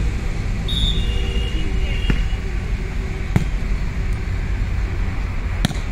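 Volleyball match play: a brief high-pitched referee's whistle blast near the start, then three sharp ball strikes spread across the next few seconds, over a steady low rumble and background voices.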